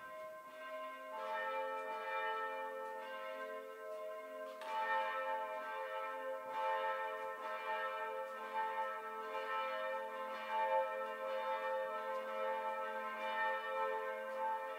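Church bells ringing to open a Sunday service: several bells struck in turn, their tones overlapping and ringing on steadily.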